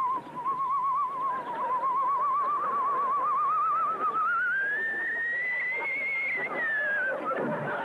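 Comic whistling sound effect of an arrow in flight: a single wavering tone with a fast warble, holding near one pitch, then gliding up over a few seconds and breaking off about seven seconds in. A short, low, falling sound follows near the end.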